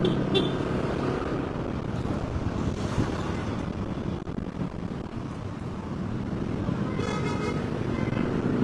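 Street traffic noise: a steady rumble of passing vehicles, with wind on the microphone and a short high-pitched sound about seven seconds in.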